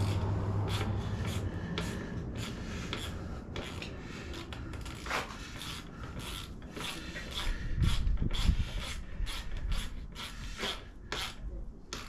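Irregular clicking, rattling and scraping of metal parts as the exhaust silencer is fitted and fastened on a Suzuki RM65 dirt bike, with a few dull knocks about eight seconds in.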